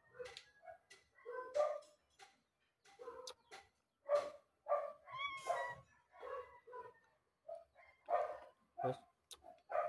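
A dog barking repeatedly, about a dozen short barks at an irregular pace, with one drawn-out, whining yelp about halfway through.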